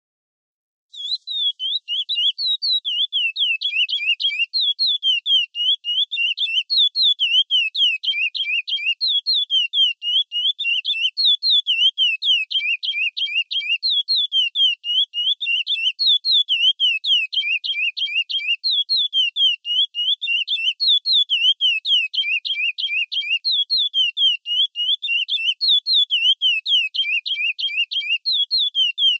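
Chestnut-bellied seed-finch (curió) singing the 'Praia Clássico' song: a loud, rapid, unbroken string of high whistled notes, each sweeping downward, grouped in repeating phrases. It starts about a second in.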